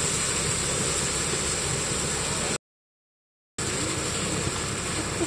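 Side-by-side utility vehicle's engine running as it fords a deep creek, with a steady rush of churning water around it. The sound drops out completely for about a second midway.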